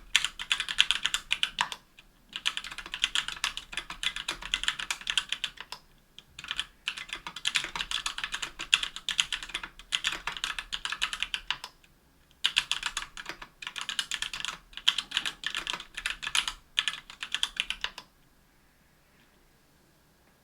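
Fast typing on a KBDfans Tofu60 aluminium 60% keyboard with stock Everglide Amber Orange linear switches, rapid key clacks in bursts separated by short pauses, stopping about two seconds before the end.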